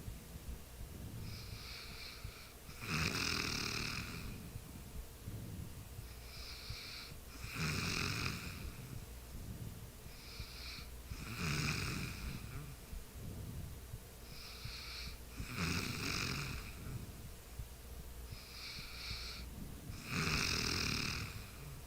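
A sleeping person snoring in a slow, regular rhythm: a loud snore about every four seconds, each with a softer breath just before it.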